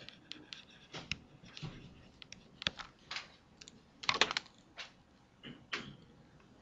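Pen stylus tapping and scratching on a tablet screen during handwriting: faint, irregular clicks and short scrapes, with a denser, louder cluster about four seconds in.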